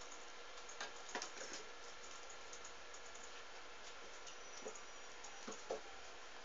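Faint scattered taps and light knocks, a few about a second in and more near the end, over a steady low hiss: a kitten's paws and claws on a wooden ledge as it plays.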